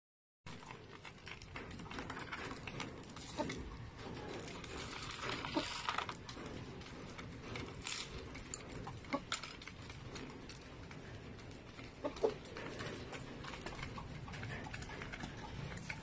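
Pigeons pecking mixed seed from a feed trough: an irregular patter of beak taps and clicks on the trough and grain.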